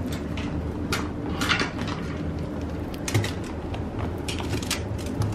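Handbags being handled: scattered light clicks and rustling over a steady low hum.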